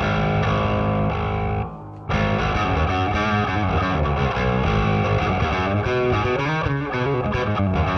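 Bass guitar played through an overdriven Ampeg SVT tube bass amp and 8x10 cabinet: a held distorted note, a brief stop about two seconds in, then a run of changing notes.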